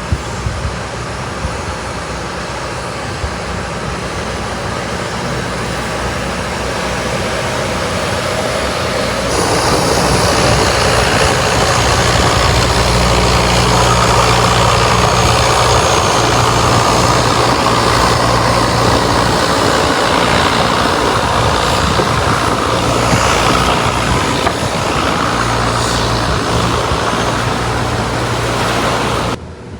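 Boat engine running steadily under way, a low even hum under heavy wind and water noise. It grows louder about a third of the way in and cuts off abruptly just before the end.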